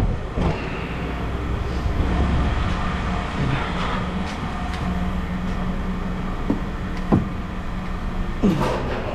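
An engine running steadily with a low hum, with a few sharp clanks of scrap metal being handled, the loudest two near the end.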